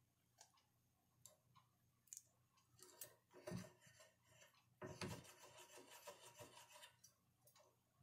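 Faint rustling and scattered soft clicks from a Congo African grey parrot preening its back feathers on its perch. The rustling is loudest in two stretches, about three seconds in and again from five to seven seconds.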